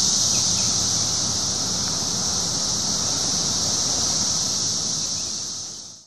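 Chorus of 17-year periodical cicadas, a steady high-pitched drone that fades out near the end.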